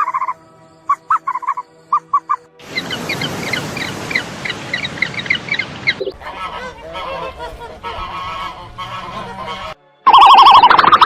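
Geese honking: a few short honks, then the dense calling of a flock. About ten seconds in, a very loud musical jingle cuts in.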